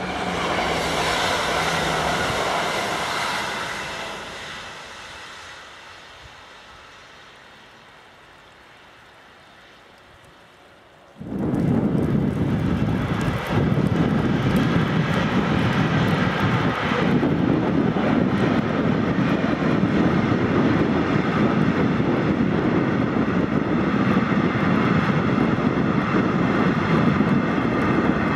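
A freight train hauled by a red electric locomotive rolling past, a steady rumble of wheels on rails with faint steady tones above it. It starts suddenly about 11 s in and follows a fainter rumble that dies away over the first few seconds.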